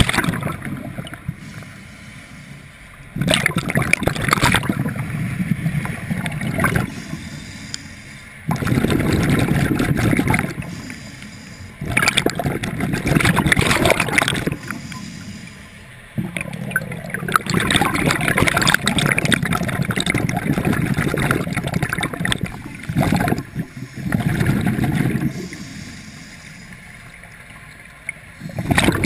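Scuba diver breathing through a regulator underwater: repeated bursts of gurgling exhaled bubbles, each lasting a few seconds, with quieter gaps between breaths.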